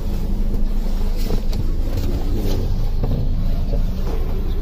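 Cabin noise inside a Range Rover Evoque being driven: a steady low rumble of engine and road.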